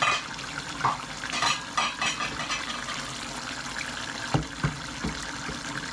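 Fish curry simmering in an aluminium pot on a gas hob, with a few clinks and scrapes of cookware in the first couple of seconds and several dull knocks a little after four seconds in.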